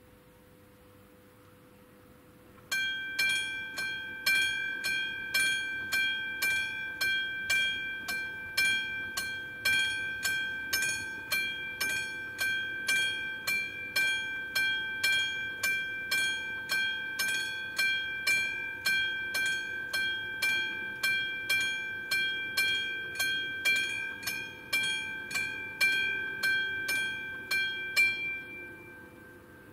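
AŽD 97 level-crossing warning bell, struck evenly about twice a second with a ringing tone: the crossing has activated for an approaching train. It starts about three seconds in and stops shortly before the end.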